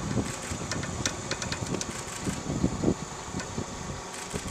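Engine idling steadily, with a quick run of light clicks between one and two seconds in.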